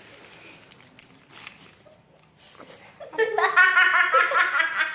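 A girl laughing, a quick run of high-pitched pulses that starts about three seconds in and lasts under two seconds.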